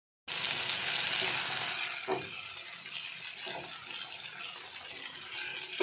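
Onion and tomato masala frying in oil in a pan: a steady sizzle with a few light knocks.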